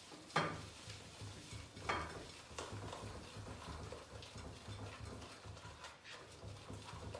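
Hand mixing egg and sugar in a glass bowl: two sharp knocks against the glass, about half a second and two seconds in, then steady soft mixing and rubbing sounds.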